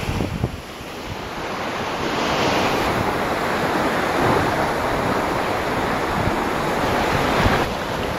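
Sea surf washing on a beach with wind buffeting the microphone, a steady rushing noise with gusty low rumbles.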